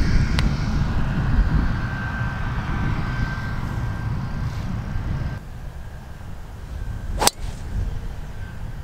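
A driver strikes a golf ball off a tee, a single sharp crack about seven seconds in. A low rumble of wind on the microphone runs underneath.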